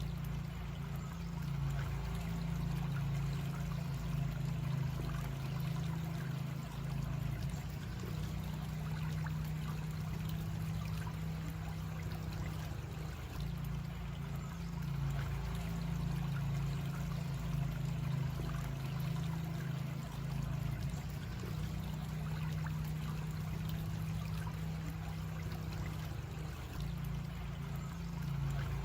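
Creek water running steadily over its bed, trickling and babbling, with a continuous low rumble underneath.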